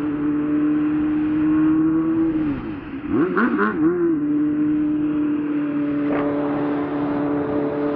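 Motorcycle engine running at a steady pitch; about two and a half seconds in the note falls as the throttle is closed, then a few quick revs rise and fall before it settles back to the same steady note.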